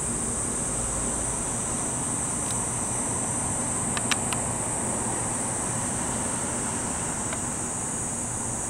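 Steady high-pitched cicada drone over the low, even hum of a Fukui Railway 200 series electric railcar standing at the platform. A few sharp clicks come about four seconds in.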